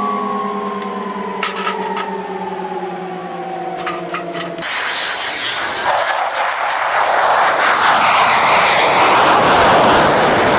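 Fighter jet engines: first a turbine whine whose tones sink slowly, with a few sharp clicks. Then, after a cut about four and a half seconds in, a brief rising whistle and a loud jet roar that builds toward the end, as of a jet powering up or taking off.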